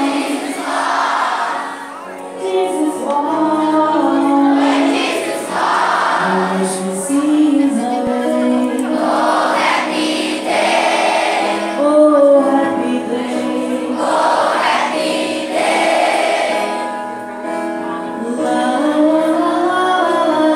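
A group of schoolchildren singing together in chorus to music, with held notes and steady singing throughout.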